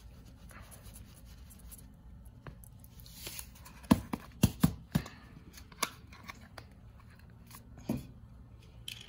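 A short hiss of vinegar squirted from a plastic squeeze bottle into a small plastic cup, then a run of sharp plastic clicks and taps as the bottle and cup are handled, clustered just after the pour with two more later on.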